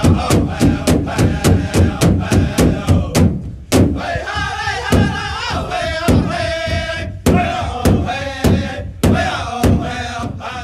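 Background music of a drum beaten steadily, with a group of voices chanting over it. The drumbeat is fast, about four strokes a second, then slows to about one a second after about four seconds, as the chanting turns into longer held notes.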